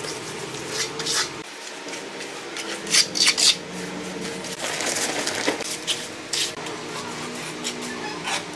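Steel trowel scraping and slapping wet concrete mortar as it is spread and pressed onto a countertop, in repeated short strokes with the sharpest cluster about three seconds in.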